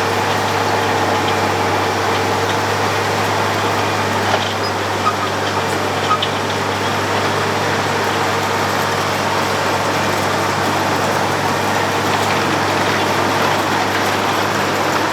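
Road planing machine running steadily, a dense mechanical din over a low engine hum, with a few short knocks about four to six seconds in.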